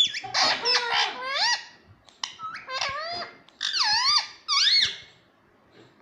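Pet parrot squawking and chattering in a run of high, squeaky calls, the pitch swooping up and down, about a dozen in quick succession before it stops near the end.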